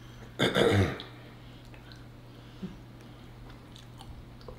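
A short throat-clearing sound about half a second in. After it come faint chewing and a few small clicks of eating, over a steady low hum.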